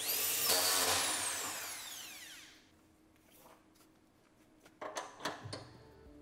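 Makita cordless drill driving a socket on a damper's drive shaft fitting: the motor whines up sharply, runs briefly, then spins down with a falling whine over about two seconds. A few light clicks come near the end.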